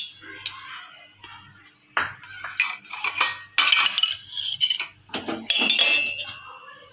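Metal spoon scraping and clinking against the inside of a stainless steel mug as country sugar is stirred around in it, with sharp clinks at the start and about two seconds in. Near the end a metal tea strainer is set on the mug with a short ringing clink.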